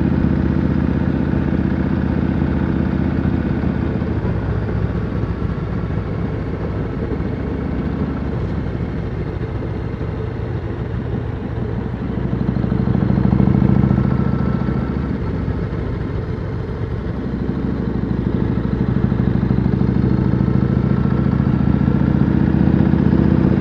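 Yamaha Road Star's V-twin engine running steadily as the motorcycle rides along, heard from the rider's seat. The engine note swells louder about halfway through, eases off, then grows louder again toward the end.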